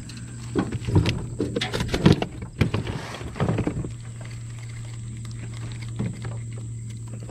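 A cluster of knocks and thumps against an aluminum jon boat and a plastic cooler as a caught fish is handled and put in the cooler, over a steady low hum.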